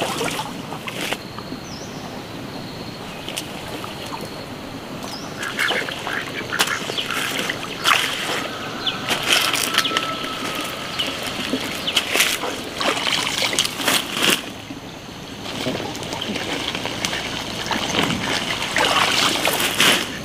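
Water hyacinth being pulled up from a shallow pond by hand: wet leaves and stems rustling and tearing, with water splashing, in repeated bursts that come thickest near the end.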